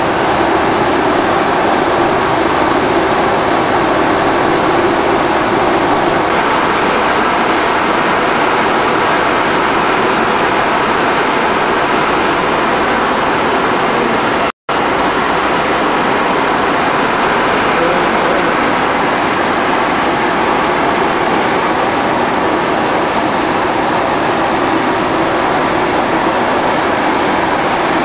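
Steady, loud rushing noise of a shrink-wrap packaging machine's blower fans running, which cuts out for an instant about halfway through.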